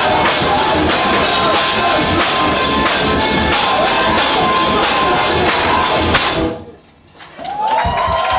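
Live band, electric guitar, bass guitar and drum kit with crashing cymbals, playing loud distorted rock at full volume, then stopping abruptly about six and a half seconds in. After a moment of near silence, ringing guitar tones rise in pitch and swell back up near the end.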